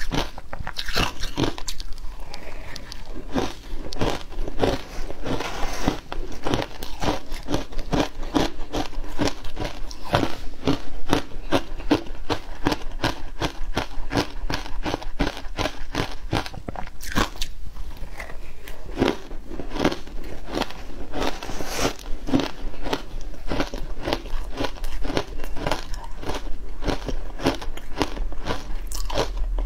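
Frozen matcha ice being bitten and chewed: a steady run of crisp crunches and cracks, about three to four a second.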